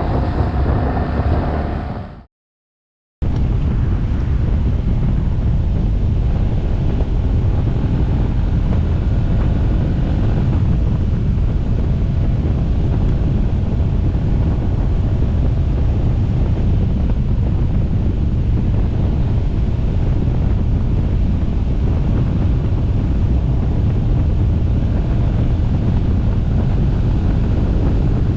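Wind buffeting a microphone on a moving motorcycle: a steady, loud low rush. The first two seconds carry a different sound with a few steady tones, then the sound cuts out completely for about a second before the wind noise begins.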